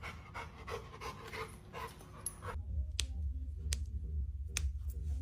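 Fast, rhythmic panting, about four breaths a second, that cuts off abruptly about two and a half seconds in. After it come a low steady hum and a few sharp, separate clicks.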